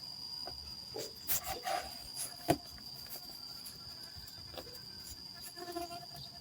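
Insects droning steadily at a high pitch, with scattered small clicks and rustles and one sharper click about two and a half seconds in.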